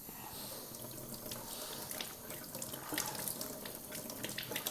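Tap water running over cucumbers being rinsed by hand in a sink, with frequent small splashes and knocks as they are handled.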